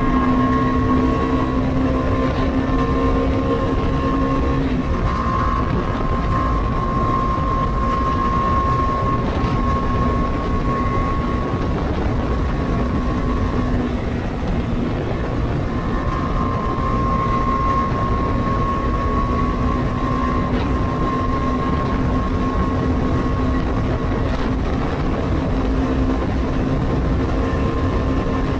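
Bajaj Dominar 250's single-cylinder engine and stock exhaust at a steady highway cruise, holding a nearly constant pitch that eases slightly a few times, over a steady low rumble.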